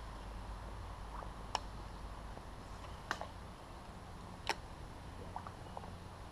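Three sharp clicks, about a second and a half apart, with a few fainter ticks between them, over a low steady rumble.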